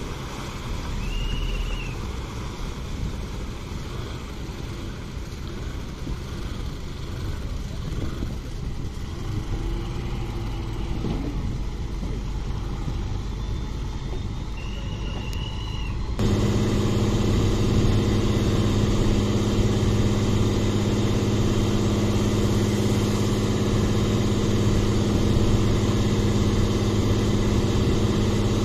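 Fishing boat engine running with wind and water noise. Twice, a short high-pitched tone sounds. About halfway through, the sound jumps to a louder, steady engine drone with a strong low hum, as a boat's engine runs close by.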